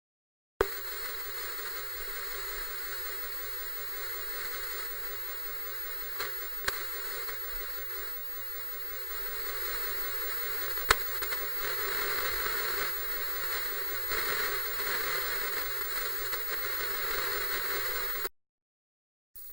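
Old analog television static: a steady hiss with a few sharp crackles, starting with a click about half a second in and cutting off about a second before the end.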